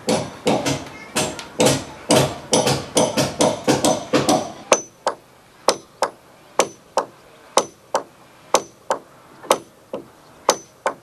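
Hammer blows on a timber roof beam. For the first four seconds or so they come fast and crowded, with a fuller sound. After that they settle into single sharp strikes about twice a second, each with a short high ring.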